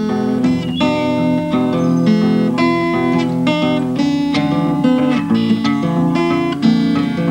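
Guitar music with plucked notes following one another in quick succession, steady throughout.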